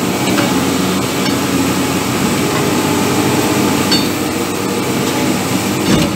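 Wheel loader's diesel engine running steadily under working load, heard from the operator's seat, with a few light knocks.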